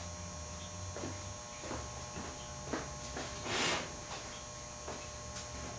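Steady electrical hum from two running HHO (oxyhydrogen) generator units, with a few faint clicks and a short hiss about three and a half seconds in.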